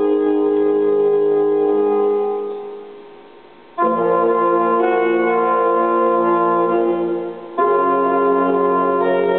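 Instrumental music of slow, held chords with no singing. The first chord fades away between about two and three and a half seconds in, then a new chord comes in suddenly near four seconds and another near seven and a half seconds.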